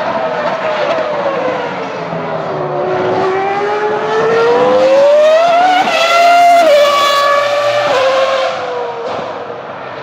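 Ferrari Formula 1 car's V10 engine at high revs, a shrill scream. Its pitch sinks, then climbs steadily as the car accelerates, then drops sharply three times in quick succession in the second half as it snaps through upshifts.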